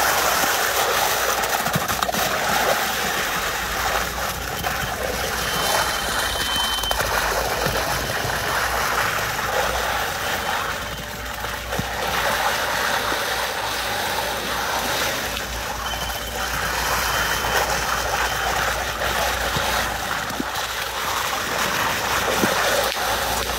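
Wet concrete gushing from a concrete pump's end hose onto a slab, a steady splattering rush, with a low machine hum underneath. A faint high tone sounds briefly twice.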